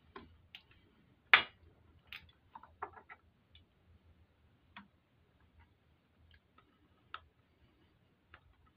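Scattered light clicks and taps of metal parts handled at a motorcycle V-twin engine's tappet-block opening while fitting the tappets and tappet block. The loudest tap comes about a second and a half in, with a quick cluster of clicks around three seconds, then only occasional single clicks.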